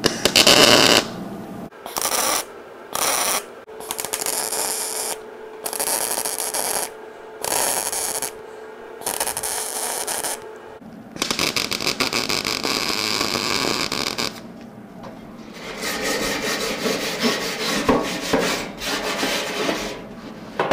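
MIG (wire-feed) welder laying a round of tack and stitch welds on a steel dash panel: a string of crackling, hissing arc bursts, each from about half a second to three seconds long, with short pauses between them as the welder stops and restarts; the first burst is the loudest.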